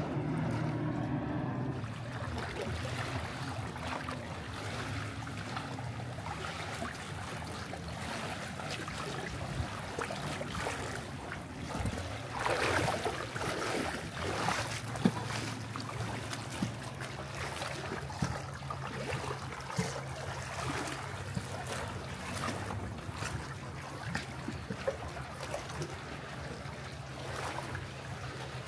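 Small sea waves lapping and splashing at the shore, over a steady low motor hum. A few louder splashes come about halfway through.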